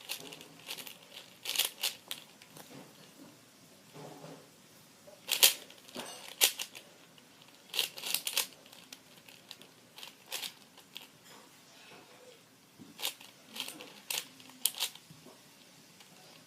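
MoYu Aosu 4x4 plastic speed cube being turned by hand during a solve: short, dry, clicky rasps of the layers turning, coming irregularly in small groups with pauses between.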